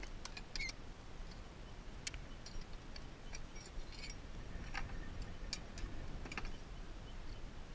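Farrier's metal hand tools and nails clinking and clicking in a metal tool box as they are picked through, a string of light, irregular ticks.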